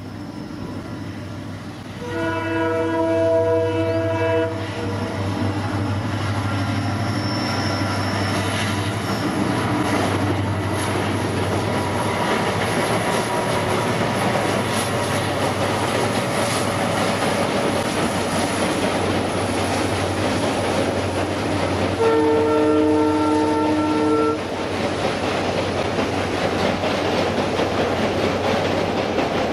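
Diesel locomotive sounding two horn blasts, about 2 s in and about 22 s in, each about two seconds long, over a steady low engine drone. The rumble and clatter of the train's wheels builds from about five seconds in and stays loud as the train passes.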